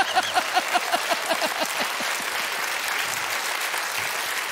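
Studio audience applauding, with one person's loud, rhythmic 'ha-ha-ha' laughter over it that fades out about two seconds in.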